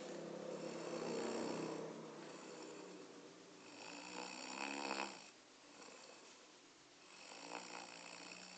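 A sleeping person snoring: three snores a few seconds apart, the middle one swelling and then cutting off sharply.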